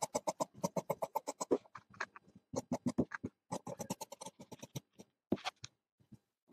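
Large tailor's shears cutting through uniform cloth: runs of quick, crisp snips, several a second, broken by short pauses where the cutting stops.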